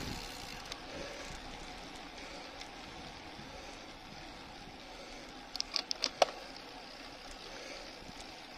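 Steady hiss of wind and tyres on asphalt from a bicycle riding slowly up a gentle grade. A quick cluster of about half a dozen sharp clicks comes a little past halfway.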